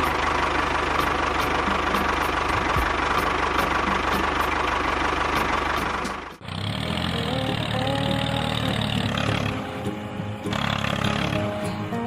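Small motors of miniature model construction vehicles running steadily. The sound changes abruptly about six seconds in to a different motor sound with a wavering pitch.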